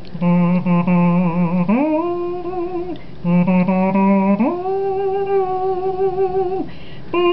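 A woman humming a Hawaiian tune through her nose: a low note with vibrato slides up about an octave and is held, then the same phrase comes again after a short break.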